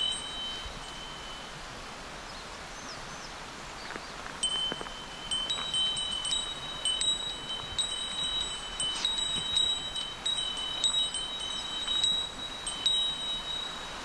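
Small metal bear bell jingling: a few rings at the start, a pause of about three seconds, then repeated irregular rings, each hanging on briefly.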